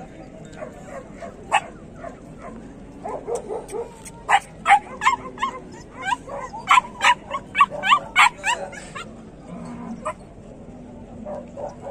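Bully Gull Terrier puppy yipping: a single yip, then a quick run of about a dozen short, high yips from about three to nine seconds in.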